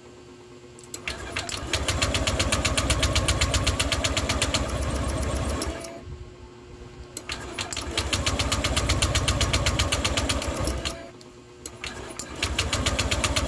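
Honda Click 150's single-cylinder four-stroke engine turning over in three bursts of a few seconds each, with a rapid, even pulse. It drops off between attempts. This is a hard-starting engine that has lost compression through a cracked valve.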